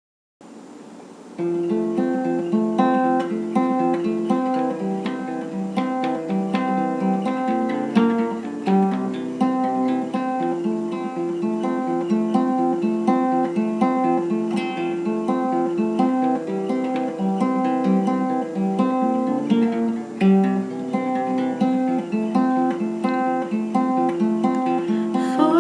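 Acoustic guitar playing the song's instrumental intro, a steady repeating pattern of notes that starts about a second in.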